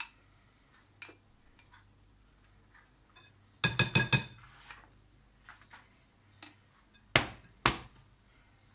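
A spatula knocking against the rims of bowls while scraping whipped egg whites into blini batter: a quick run of four or five clinks about halfway through, then two more clinks near the end.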